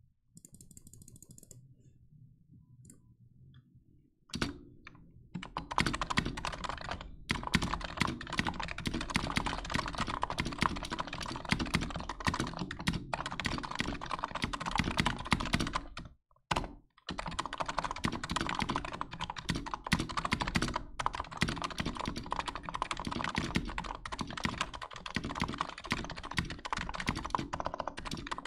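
Typing on a NiZ Plum x87 keyboard with light 35g electro-capacitive rubber-dome switches, a soft key sound. It starts faint for the first few seconds, then turns into fast continuous typing from about four seconds in, with a few short pauses.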